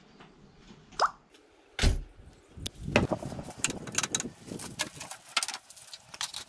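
Thick white paint plopping into a plastic paint tray with a short rising bloop, then a heavy thump. After that comes a run of light knocks and clatters from wooden boards being handled.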